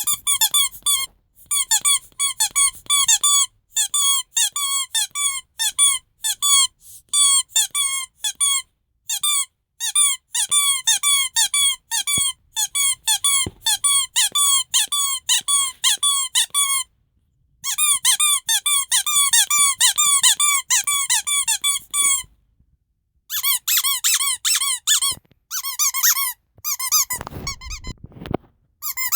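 Rubber squeaky toys of Snow White and the Seven Dwarfs squeezed again and again in quick runs, each squeak a short, high-pitched toot that bends in pitch, with brief pauses between runs. A short noisy handling sound comes in near the end.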